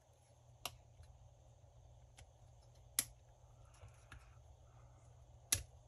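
Hard plastic clicks and snaps of a heavy-duty phone case being handled and pried apart: three sharp clicks, the loudest about three seconds in, with fainter ticks between.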